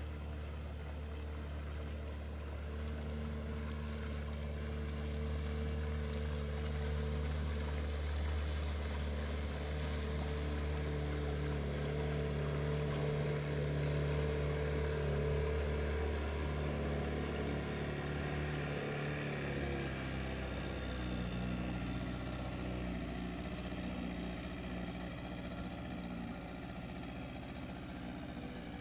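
Outboard motor of a small open motorboat running at speed as it passes. The hum swells to its loudest about halfway through, then drops in pitch and eases off as the boat moves away.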